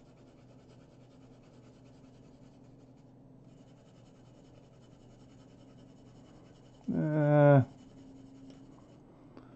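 Faint, steady scratching of a graphite pencil shading on paper. About seven seconds in, a man gives a short hum.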